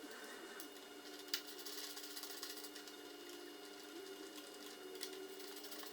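Faint clicking of a hand tool tightening the handlebar top clamp bolts, with one sharper tick about one and a half seconds in.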